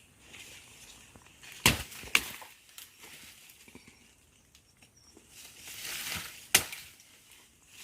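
Three sharp knocks, two close together about a second and a half in and one near the end, with crunching and rustling building up just before the last knock.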